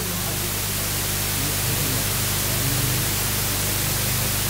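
Steady loud hiss with a low mains hum from a public-address microphone and amplifier, with faint music wavering underneath.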